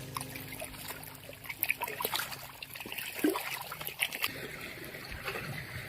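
Water trickling and lapping, with small irregular splashes and drips.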